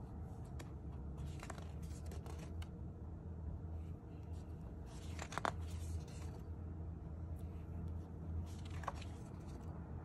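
Pages of a spiral-bound sketchbook being turned by hand: several short paper rustles and flaps, the loudest a little past halfway and another near the end, over a low steady hum.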